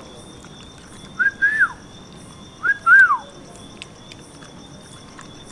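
Two short clear whistles about a second and a half apart. Each rises quickly, holds a wavering note, then glides down.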